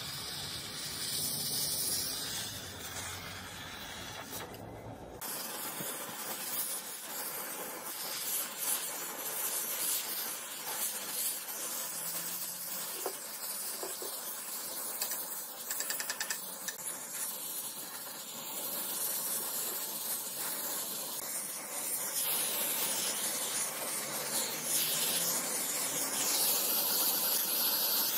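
A steady spraying hiss. A low rumble under it stops abruptly about five seconds in.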